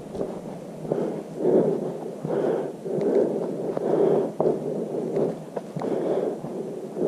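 A hiker's heavy breathing, swelling and fading about once a second, over footsteps on a gravelly dirt trail.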